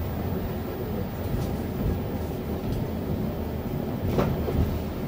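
Wolmi Sea Train car running along its elevated track, heard from inside the cabin: a steady low rumble with a couple of faint knocks.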